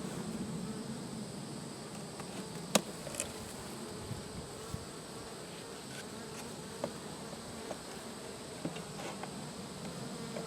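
Honeybees buzzing steadily in a low hum around an open hive, with a sharp click about three seconds in and a few faint knocks later.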